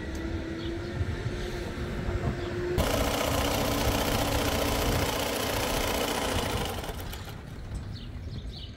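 Electric-motor-driven sewing machine stitching heavy tent cloth. A steady hum runs for about three seconds, then the machine breaks into a much louder, rapid run for about four seconds and drops back near the end.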